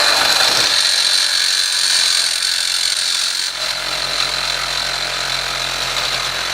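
Makita CXT 12-volt cordless reciprocating saw running and cutting thick aluminum. About three and a half seconds in, the sound drops slightly and loses its high edge as the blade cuts through.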